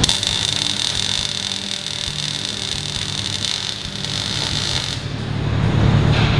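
MIG welding arc crackling steadily as a steel brace is stitch welded to the car body's sheet metal, stopping about five seconds in.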